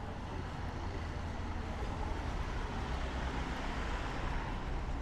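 City street traffic: a steady low rumble of car engines and tyres, growing a little louder in the middle.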